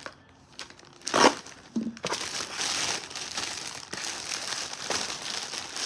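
Packaging being handled and opened: a sharp rustle about a second in, then steady crinkling and rustling of the wrapping.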